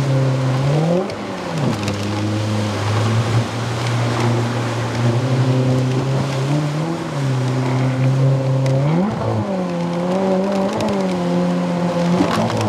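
Outboard motor of a jet-drive boat running under load, its pitch rising and falling several times as the throttle is worked through the rocks, over a steady rush of water.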